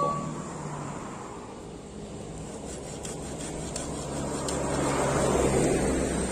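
Rustling of grass and leaves as a cut leafy branch is handled and pulled through the grass, swelling over the last couple of seconds.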